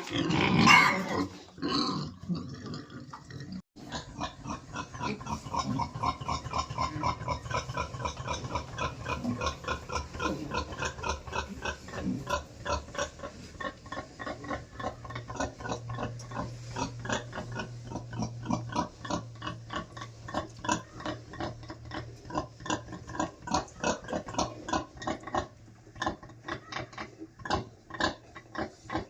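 Pigs grunting: a dense run of short, rapidly repeating sounds, with a louder burst in the first couple of seconds.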